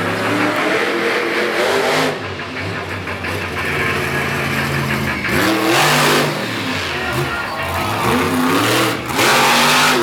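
Monster truck engine revving hard and repeatedly, its pitch rising and falling as the throttle is worked. There are two louder full-throttle surges, one about six seconds in and one near the end.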